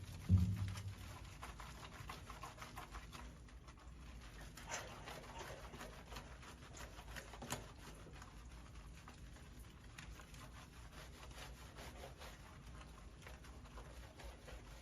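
Hands scrubbing shampoo into a wet dog's coat during a bath: faint rubbing with many scattered small clicks, and a dull thump just after the start.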